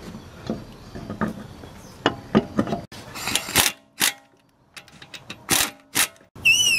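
Air impact wrench run in a few short loud bursts, spinning lug nuts onto a car wheel's studs, after light clinks of the alloy wheel being hung on the hub. A falling whine near the end.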